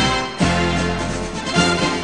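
Background music with held instrumental notes and a low bass note coming in about half a second in.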